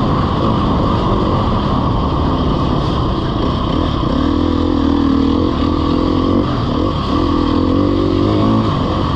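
Off-road motorcycle engine running continuously under load while ridden on a trail, its revs rising and falling.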